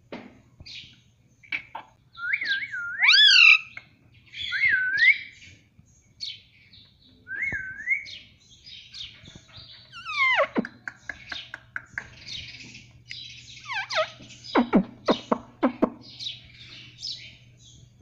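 Indian ringneck parakeet calling close up: a run of chattering notes and whistles that glide up and down, with a quick run of sharp falling squawks late on.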